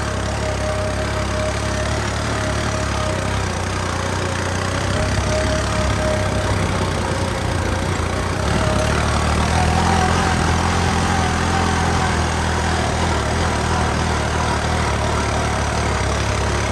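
New Holland 3630 tractor's three-cylinder diesel engine running steadily, with a thin whine in its note; the pitch and loudness rise a little about nine seconds in.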